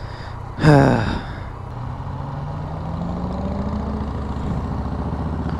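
Yamaha FZ-09 motorcycle's three-cylinder engine running under way, its pitch rising slowly as the bike gathers speed and then holding steady. About half a second in, a short loud sound falls sharply in pitch.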